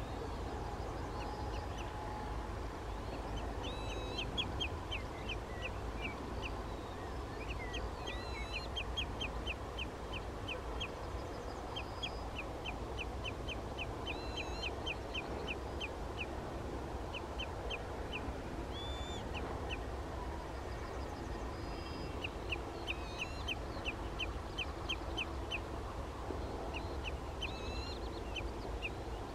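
Common redshank calling: long series of short, sharp piping notes, about five a second, broken by brief pauses, with now and then a higher up-slurred note. A steady low rumble runs underneath.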